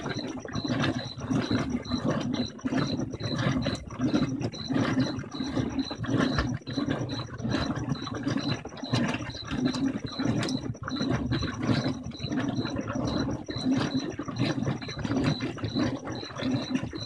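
Whirlpool Vantage high-efficiency top-load washer agitating a load of bed sheets: motor and wash plate turning the basket with a steady, rhythmic mechanical pulsing and a faint high tick about three times a second.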